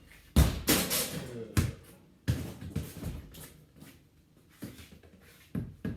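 A basketball being hit against a metal garage door during a rally: a string of about six irregular thumps, each with a short ringing tail, the loudest in the first second.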